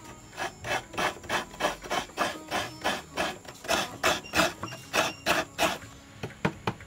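Fresh coconut flesh being grated with a hand-held serrated metal coconut scraper: a rhythmic rasping at about three strokes a second, then a couple of sharp taps near the end.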